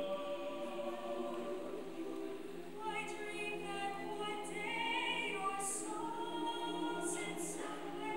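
Mixed choir singing a cappella in several parts, holding sustained chords that shift in pitch, with a few sharp 's' consonants sung together in the second half.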